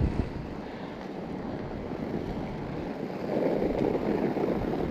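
Wind buffeting the microphone while a mountain bike's tyres crunch over snow that has a thin crust of ice on it, louder for about a second past the midpoint.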